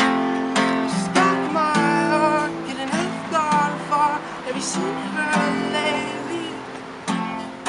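Music: a strummed acoustic guitar with a wavering melody line over it.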